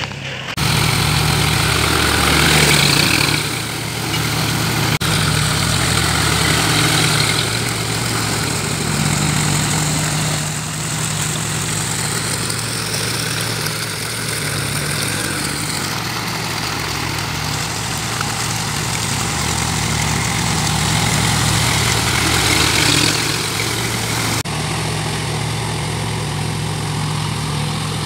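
Farm tractor's diesel engine running steadily under load as it puddles a flooded rice paddy with cage wheels.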